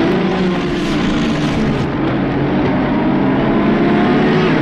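A motor running steadily and loudly: a droning hum over a rushing hiss.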